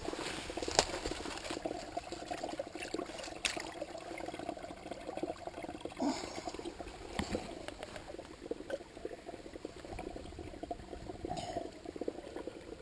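Small spring-fed brook trickling and babbling steadily over rocks, with a few brief sharp splashes or knocks along the way.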